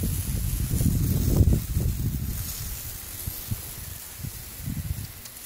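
Water hissing from a garden hose's pistol-grip spray nozzle and spattering onto an asphalt driveway. An uneven low rumble on the microphone is loudest in the first two seconds or so, then fades.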